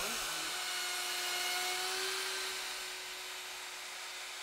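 Festool plunge router running at full speed and cutting a round recess into paulownia wood: a steady high whine with hiss, easing a little quieter about three seconds in.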